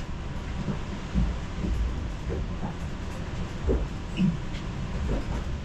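Low, steady rumble of a train, with faint indistinct voices in the background.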